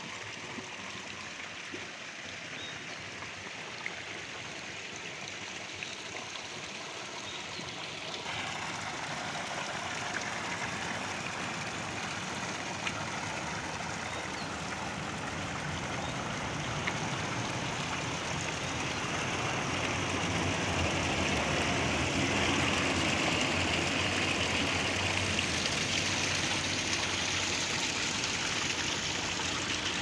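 Steady rush of running water, growing louder about eight seconds in and again past the middle.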